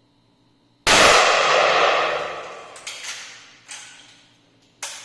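A single rifle shot about a second in, loud and echoing with a long decaying tail in a small indoor range. It is followed by a few sharp metallic clacks as the rifle's action is worked.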